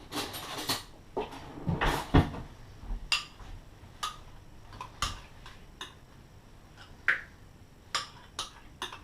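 A spoon scooping yogurt out of a tub into a bowl: a run of clinks and knocks about once a second, with louder scraping in the first two seconds.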